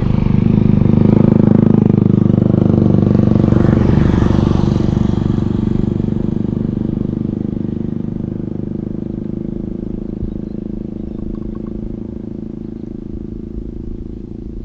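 An engine running steadily. It is loudest in the first few seconds, then slowly fades as it moves away.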